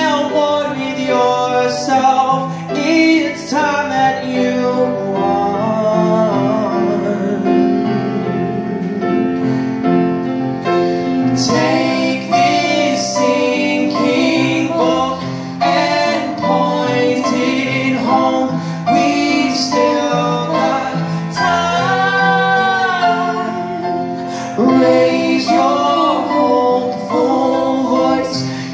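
Live singing with piano accompaniment, a woman's voice leading.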